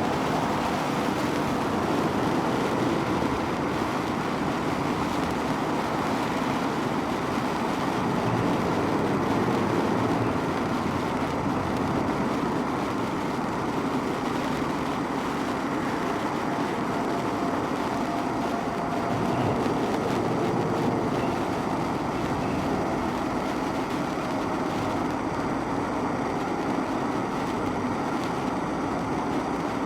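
Small hanging hand-held sparkler burning, a steady fizzing crackle of sparks.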